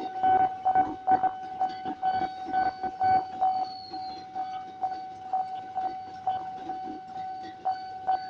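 Railway level-crossing warning bell ringing steadily at about two strokes a second, as a KRL commuter electric train passes.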